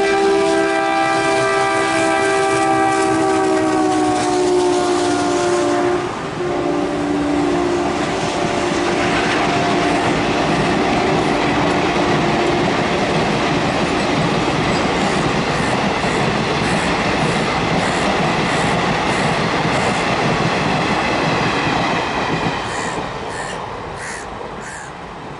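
WDM2 ALCO diesel locomotive's horn sounding for about six seconds, its pitch dropping as the locomotive goes by. Then the coaches roll past with steady wheel clatter, fading away near the end.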